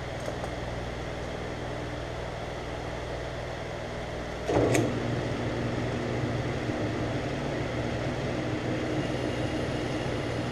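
Metal lathe running with a steady motor and gear-drive hum. About four and a half seconds in there is a sharp clunk, and the hum runs louder after it.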